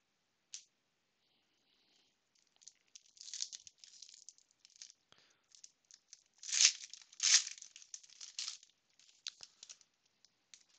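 A foil Panini Prizm basketball card pack wrapper being torn open and crinkled, in a series of short crinkling rips that are loudest about two-thirds of the way through. The first couple of seconds are near silent apart from a single light click.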